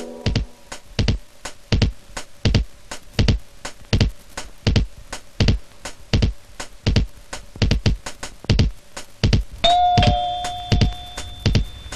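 A steady run of sharp knocks or clicks, about two a second, like a clock-like or wood-block rhythm. About ten seconds in, a single bell-like ding rings out for over a second over the knocking.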